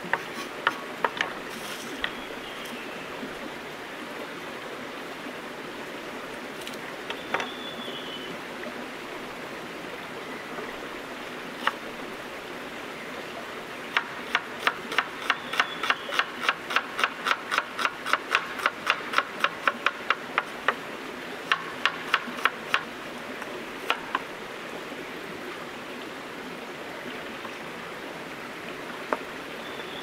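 Kitchen knife chopping a red onion on a cutting board: a few scattered single strokes, then a quick even run of about three to four chops a second for roughly nine seconds, over the steady rush of a stream.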